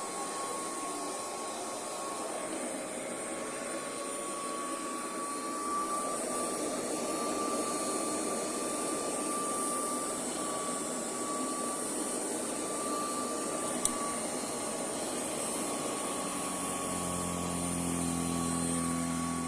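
Royal Commercial Model 608 vacuum cleaner running steadily, a motor whine over a rushing airflow noise. A single click comes about two-thirds of the way through, and a lower hum joins near the end.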